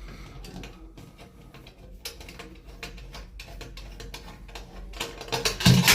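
Light clicking and ticking of a Phillips screwdriver working out the screws of a shower valve's metal trim plate. Near the end comes a louder clatter of metal with a thump.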